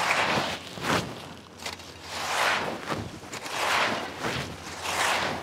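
A rake dragging through dry fallen leaves in about five strokes, roughly one a second, each a rustling scrape that swells and fades.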